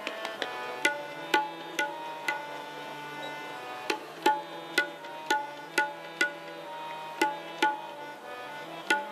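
Harmonium holding steady notes while a tabla plays sharp, ringing strokes about two a second, with short pauses between phrases.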